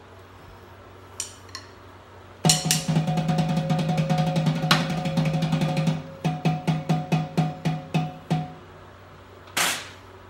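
Snare drum fitted with a Pearl Muffle Head, played with sticks with its snare wires switched off, so the drum sounds without snare buzz: a fast roll of about three and a half seconds, then about a dozen separate strokes at roughly five a second, and one sharp hit near the end.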